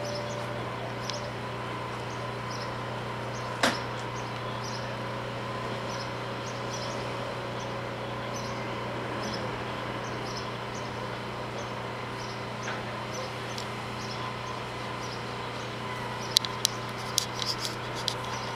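Steady low mechanical hum with a faint high tone over it, a single sharp click about four seconds in, and a quick run of clicks near the end.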